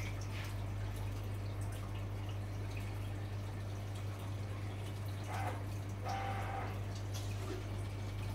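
Marine reef aquarium's water circulation: water trickling and dripping over a steady low hum from the pump.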